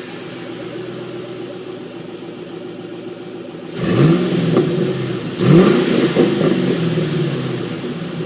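2005 Ford Mustang GT's 4.6-litre V8 idling, then revved twice, about four seconds in and again a second and a half later. Each rev rises in pitch and falls back to idle.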